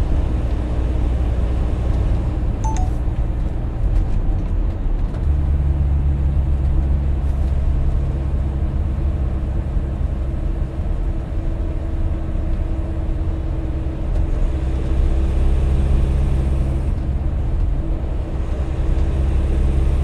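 Steady engine and tyre drone of a car cruising on a motorway, heard from inside the cabin. The low drone gets louder about five seconds in and holds.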